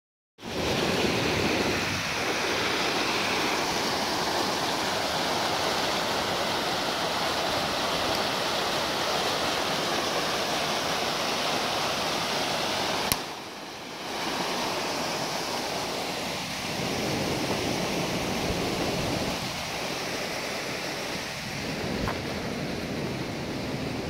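Small waterfall cascading between boulders in a rocky creek: a steady rushing of water, broken about halfway through by a click and a dip of about a second.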